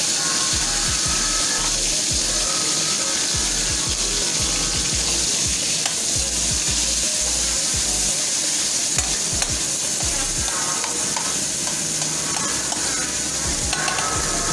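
Sliced onions and tomatoes sizzling in hot oil in a metal wok, with a steady hiss. A metal spatula stirs them, scraping and clicking against the pan.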